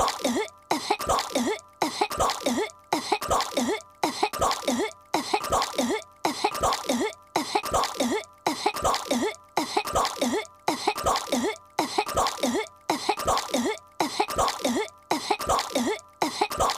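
A cartoon girl's voice coughing over and over as she chokes on a piece of gum: short, evenly repeated coughs, about three every two seconds.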